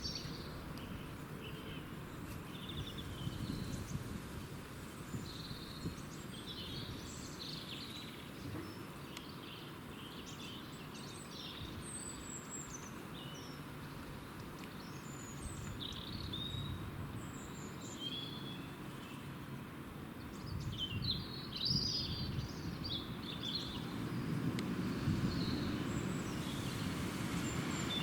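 Gulls calling: many short, high, squealing calls scattered through the whole stretch, bunched most thickly a little after twenty seconds in, over a steady low background rumble.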